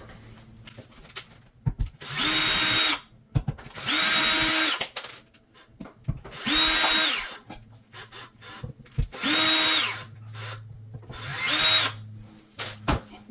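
Power drill run in five short bursts of about a second each; the motor spins up, holds speed and winds down each time, with small knocks between the bursts.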